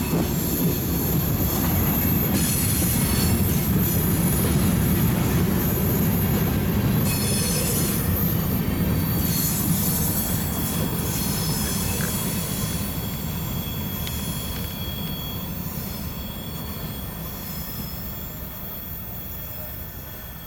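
Freight train of covered hopper and tank cars rolling by on the rails with a heavy low rumble and thin high wheel squeal. The sound slowly dies away over the second half as the cars pull away.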